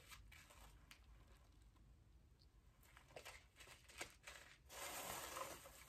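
Near silence, then faint handling of a small packet being picked open by hand: a few light ticks, and a soft crinkling rustle near the end.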